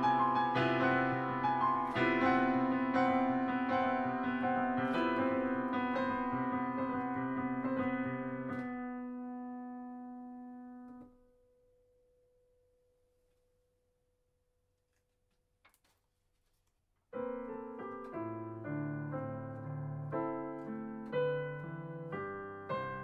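Yamaha digital piano playing repeated loud chords, the last one held and dying away about eleven seconds in. After about six seconds of near silence, playing resumes with quicker, lighter notes.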